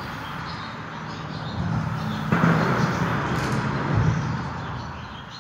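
Highway traffic on the overpass overhead, heard from underneath the bridge: a passing vehicle's noise swells suddenly about two seconds in, with a low thud about four seconds in, then fades away near the end.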